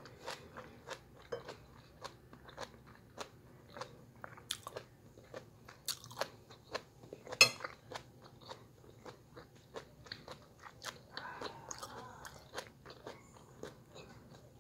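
A person chewing a mouthful of stew close to the microphone, with short mouth clicks and smacks about two a second. One sharper, louder click about halfway through.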